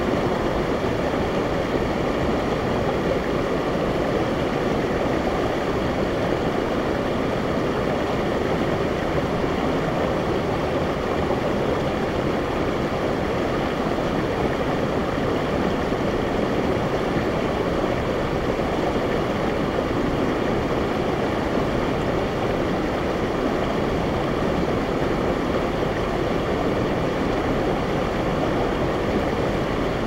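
Mountain stream rushing steadily over boulders and a small cascade.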